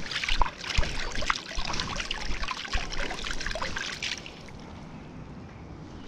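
Water splashing and trickling, with scattered small knocks and clicks, for about four seconds. It then settles to a quieter, steady rush of moving water.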